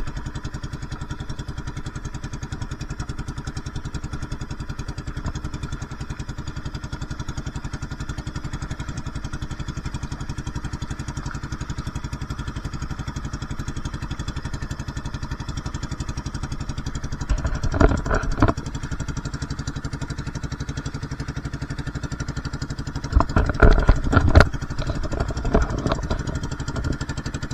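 Outrigger fishing boat's engine running steadily under way. Louder bursts of noise come over it twice, past halfway and near the end.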